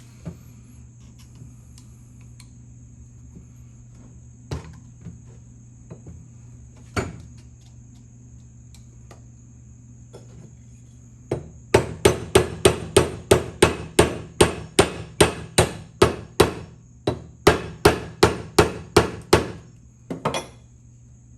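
Hammer striking a vintage ratchet during disassembly: a few scattered knocks, then a fast, even run of about twenty blows, roughly three a second, with a short pause midway, and two last taps near the end.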